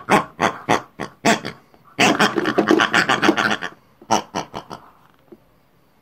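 People imitating pigs with their voices: a run of short grunting oinks, a denser flurry of them about two seconds in, then a few more that die away about five seconds in.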